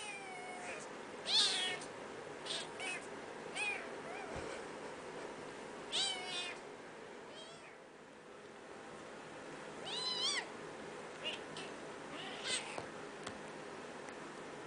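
Cat meowing repeatedly: about ten short, high calls spaced a second or more apart, loudest about a second and a half in, with a quieter stretch around the middle.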